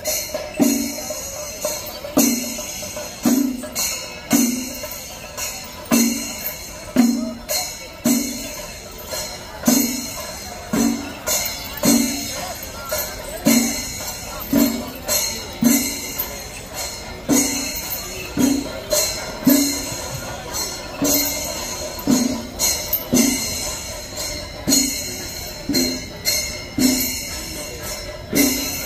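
Kerala temple percussion ensemble, chenda drums with elathalam hand cymbals, playing a steady beat of about one drum stroke a second, each struck with a bright cymbal clash.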